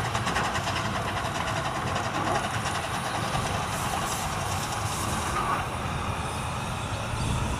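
Small steam locomotive hauling a coach past, working steadily with a quick, regular beat.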